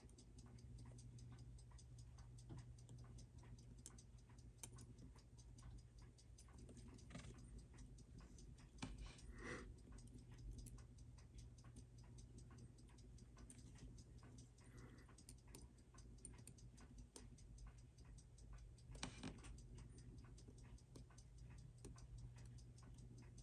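Faint, rapid, steady ticking of a timepiece, about five ticks a second, with a few louder clicks about nine and nineteen seconds in.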